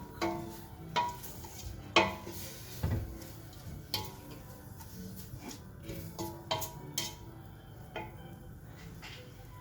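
Spoon stirring in a metal cooking pot, knocking and clanking against its sides about nine times, the loudest knock about two seconds in, as vegetables are sautéed.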